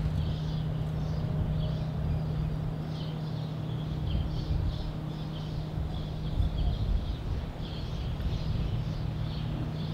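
Birds chirping in many short, quick calls over a steady low hum.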